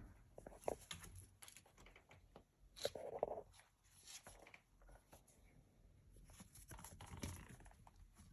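Near silence with faint scattered taps and rustles of kittens moving about, and one short louder sound about three seconds in.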